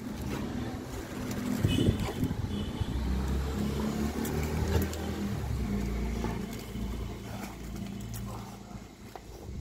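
A Labrador tearing and chewing the fibrous husk off a coconut on concrete, with scattered crackles and clicks. A low engine rumble from a motor vehicle swells from about three seconds in and fades near the end.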